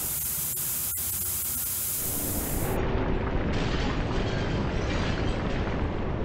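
Industrial noise: a steady high hiss, then from about two seconds in a deep, steady rumble of a heat-treatment furnace's burners.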